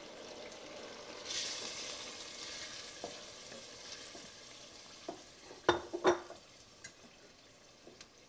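Browned ground beef sizzling in a stainless steel pot as tomato puree is poured in and stirred with a wooden spoon. The sizzle swells about a second in and then fades as the sauce cools the pan, with light scraping ticks and two sharp knocks about six seconds in.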